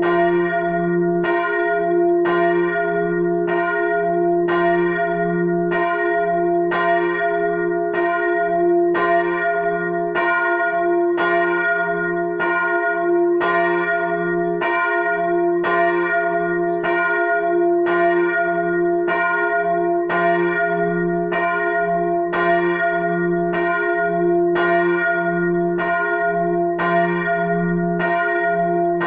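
The largest bell (Glocke 1, tuned to f') of a four-bell Catholic church tower, swinging and ringing on its own. Its clapper strikes in a steady, even rhythm, somewhat more than once a second, and each stroke rings on into the next.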